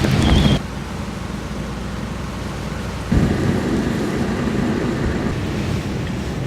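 Heavy typhoon rainstorm: a dense low rumble of rain and wind. It drops abruptly about half a second in and jumps back louder about three seconds in.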